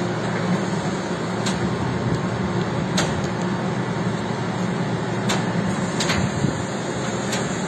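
Truck-mounted knuckle-boom crane running steadily while lifting a load, its engine and hydraulics giving a low, even drone, with a few sharp clicks now and then.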